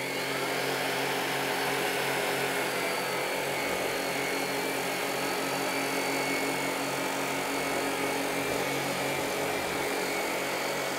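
Tineco Pure One S12 cordless stick vacuum running steadily, its 450-watt motor giving an even whine with its power-brush head on a wood floor.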